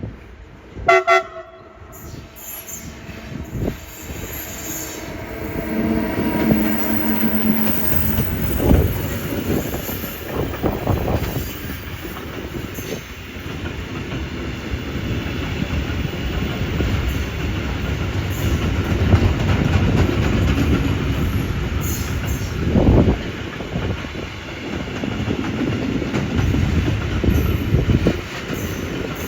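Short pitched horn blast about a second in, then a train running past with a continuous heavy rumble of wheels on rails and a few louder knocks.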